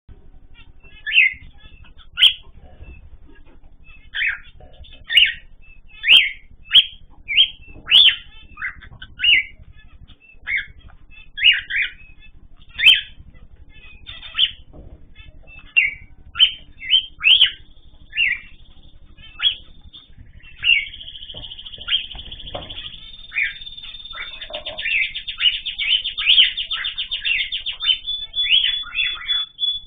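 Small cage birds chirping in an aviary: many short, separate chirps with a few sharp ticks among them. About two-thirds of the way through, a long, fast trill starts and runs on under the chirps.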